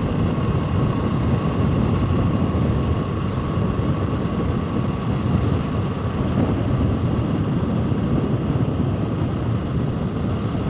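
Motorcycle ridden at a steady speed on an open road: the engine runs evenly under a loud, steady rush of wind noise on the microphone, with a faint steady whine above it.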